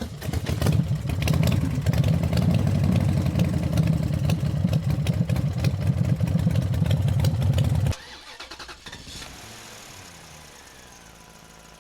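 An engine running loudly with a rapid, clattering beat, then stopping abruptly about eight seconds in. A much fainter, steady sound follows.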